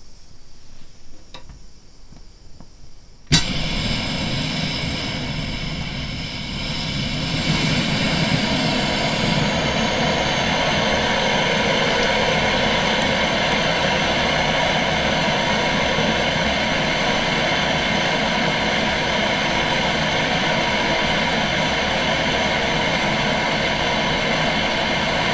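Optimus No. 111 petrol pressure stove lighting once preheated: after a few faint ticks, the fuel catches with a sudden pop about three seconds in, and the burner settles into a steady rushing hiss with faint whistling tones in it, growing louder a few seconds later and then holding steady.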